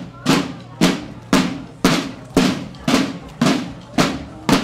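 Marching snare drums of a school drum and bugle corps (banda de guerra) beating a steady march cadence together, about two strokes a second.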